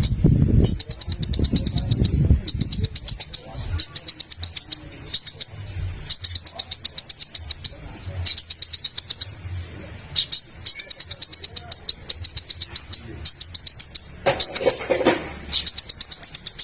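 Sogok ontong (spiderhunter) singing in full, 'gacor' voice: rapid strings of high, sharp chipping notes in bouts of one to two seconds, repeated one after another with short pauses. About two thirds of the way in, a brief lower-pitched sound joins the song.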